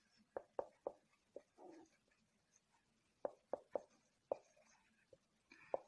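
Marker pen writing on a whiteboard: faint short taps and scratchy strokes, about ten in all, as letters are written.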